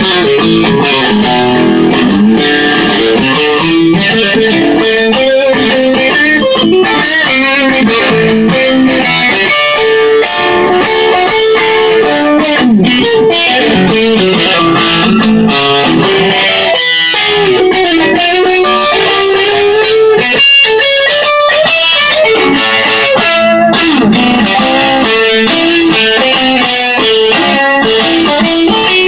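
Custom-built offset-body electric guitar with a single pickup, Telecaster-style like a Telemaster, played amplified: a steady run of picked single-note lines and chords, with a few notes bending in pitch about halfway through.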